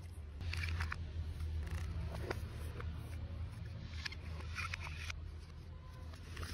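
Cardboard and paper packaging of a smartphone box being handled, with a few short rustles and scrapes and a click as the paper inserts and a card sleeve are lifted and slid out, over a steady low hum.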